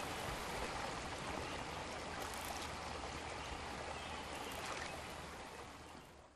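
Steady hiss of heavy rain, fading out over the last second.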